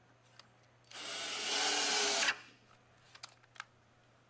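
A 19.2-volt cordless drill driving a screw into a cedar log. It runs steadily for about a second and a half, then stops abruptly. A couple of light clicks follow.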